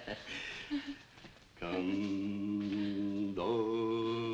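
A low male voice singing slow, chant-like lullaby notes. It begins about a second and a half in with long held notes and steps to a new pitch near the end.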